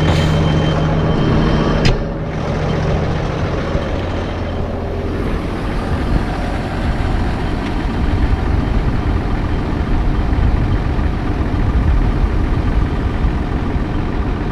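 Case IH Puma CVX tractor running with the PTO engaged, driving the Garford Robocrop in-row weeder during a rotor test. A sharp click comes about two seconds in, after which the sound turns to a rougher, broader rush of engine and machinery noise with a strong low rumble.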